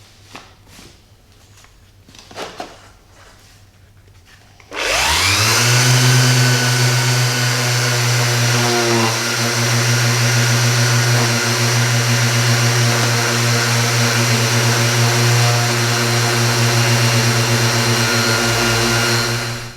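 Handheld electric power tool switched on about five seconds in: the motor spins up with a rising whine, runs steadily and loudly for about fifteen seconds, then switches off. A couple of light ticks come before it starts.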